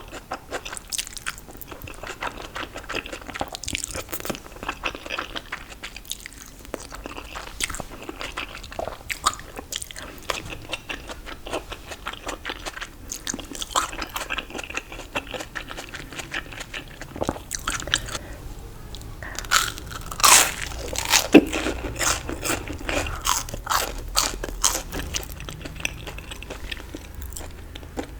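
Close-miked eating: crunchy bites into fried food such as onion rings, dumplings or fries, followed by crackly chewing, with a cluster of louder crunches about two-thirds of the way through.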